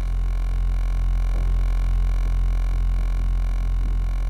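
A low, steady droning hum with a slow, regular throb, holding level throughout.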